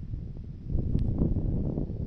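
Wind buffeting the microphone outdoors, a low rumble that grows louder just under a second in, with one sharp click about a second in.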